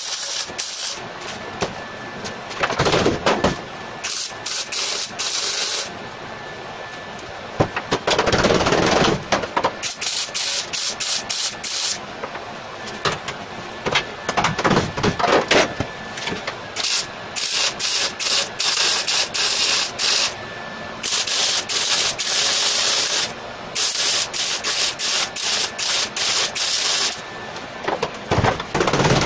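MIG welder welding car body steel: short crackling bursts of tack welds of a second or less, alternating with longer hissing, crackling runs of several seconds.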